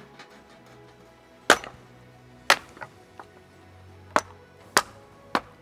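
Firewood being chopped for kindling: a string of sharp wooden knocks about once a second, the loudest about a second and a half in, over soft background music.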